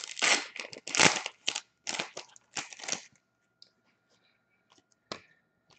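A trading card pack's foil wrapper being torn open and handled: a run of scratchy, rustling noise for about three seconds, then a few faint taps as the cards are handled.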